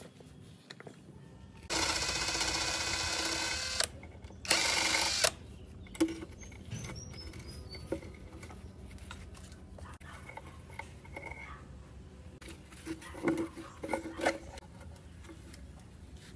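A small power tool runs in two short bursts, about two seconds and then about one second, followed by scattered clicks and knocks.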